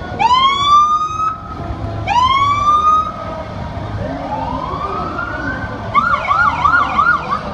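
Fire truck sirens sounding in short bursts: two quick rising whoops about two seconds apart, then a slower wind-up, and near the end a fast up-and-down yelp of about four cycles a second.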